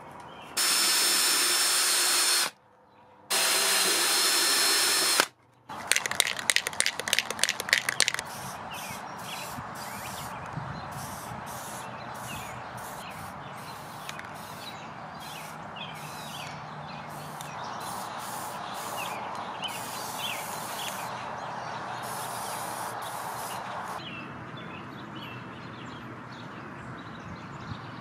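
Power drill running in two bursts of about two seconds each, boring holes in mild steel coat hooks. Then comes a quick rattle of rapid clicks, and spray paint hisses in many short bursts for about fifteen seconds.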